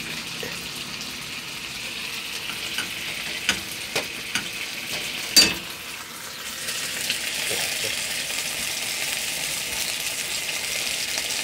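Pork steaks sizzling as they fry in sauce in a frying pan, with a few sharp clicks of a plastic slotted spatula against the pan as they are turned. The sizzle grows louder about halfway through.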